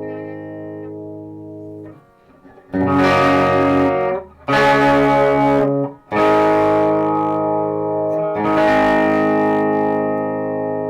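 Electric guitar with Fleor Alnico 5 humbucker pickups playing chords. A held chord fades out, then four chords are struck and left to ring.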